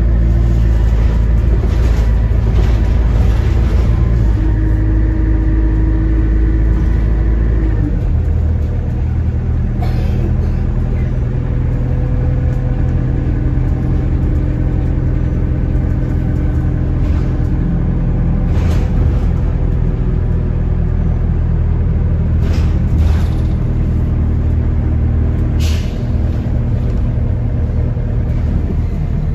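A bus's engine and road noise heard from inside the passenger saloon while it drives. The engine note changes about eight seconds in, then runs on steadily. There are a few sharp knocks or rattles from the body.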